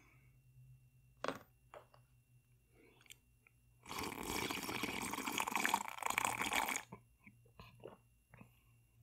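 A person drinking the leftover soy-sauce-flavoured milk straight from a cereal bowl, loud mouth and liquid noise for about three seconds, starting about four seconds in. Before it, a brief knock as a metal fork is set down.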